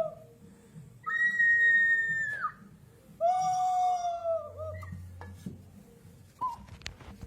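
Peruvian clay whistling pot sounding two long whistles: the first high and steady, the second lower and fuller, dipping in pitch at its end. A short lower note and a few clicks follow near the end.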